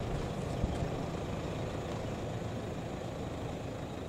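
Steady low rumble of wind buffeting the microphone on an exposed hilltop lookout, with a brief knock about half a second in.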